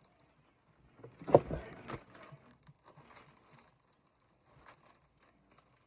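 LEGO pieces being handled: a short louder clatter about a second in, then scattered small clicks of plastic bricks.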